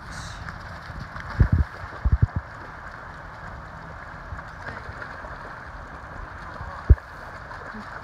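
Weimaraner–Labrador mix dog bounding and splashing through a shallow, flowing river, over the steady rush of the water. A splash comes right at the start, and a few short, low thumps come about a second and a half in, around two seconds in, and near the end.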